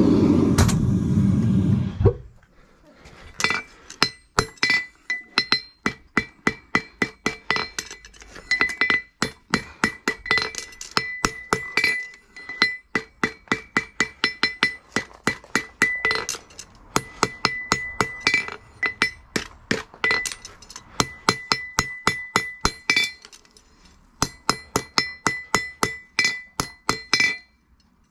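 Farrier's hammer striking a steel horseshoe on an anvil, shaping the shoe: runs of quick ringing blows, about three a second, with short pauses between the runs. A loud rushing noise fills the first two seconds before the hammering starts.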